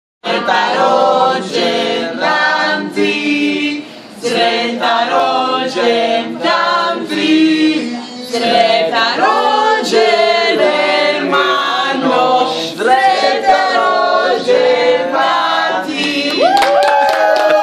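A small group of young men and women singing a Croatian song together, unaccompanied. A few hand claps start near the end.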